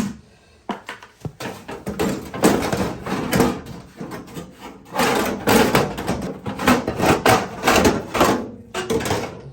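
Irregular knocks and clatter of parts and tools being handled while working on an oil-fired boiler's burner, in uneven clusters of sharp hits.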